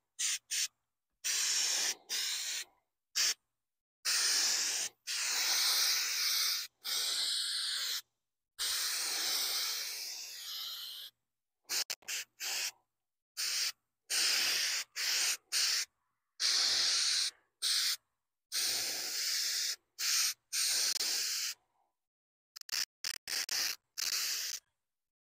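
Aerosol spray can of textured paint hissing in a string of short bursts, each stopping sharply, as a textured coat is laid on and evened out.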